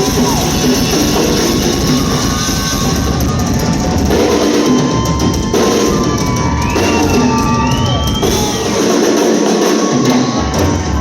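Live band playing loudly through a club PA, the drum kit with kick and snare most prominent. A high tone glides upward about seven seconds in, and the bass cuts out briefly near the end.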